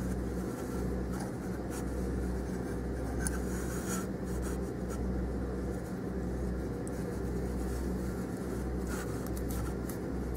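Graphite lead in a dental surveyor rubbing along the teeth of a plaster dental cast while the cast is slid around on the surveyor table, a steady scraping with a few faint clicks. The lead is marking the height of contour on each tooth at the gum line.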